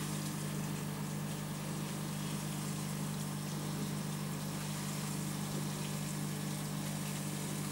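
Aquarium pump humming steadily, a constant low hum over steady water noise from the tank's filter and bubbles.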